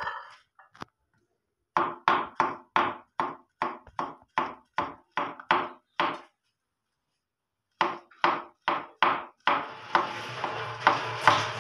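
A large kitchen knife chopping through a peeled banana onto a plastic cutting board: short knocks about three a second, in two runs with a pause of over a second between them. Background music comes in near the end while the chopping goes on.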